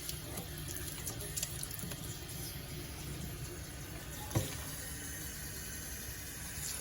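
Kitchen faucet running water into a sink that is draining slowly, with one short knock about four seconds in.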